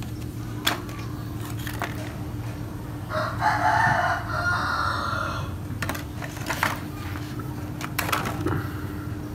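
A rooster crows once, about three seconds in, for roughly two seconds. Around it come a few sharp knocks and clacks of hard, dried lingzhi mushrooms being handled, over a steady low hum.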